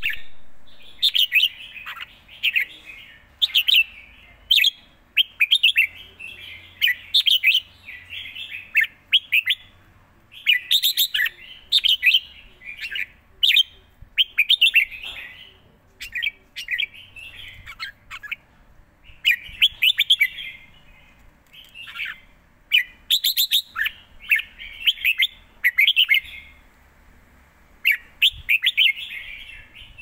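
A red-whiskered bulbul singing. It repeats short phrases of quick notes, one after another every second or two, with a few brief pauses.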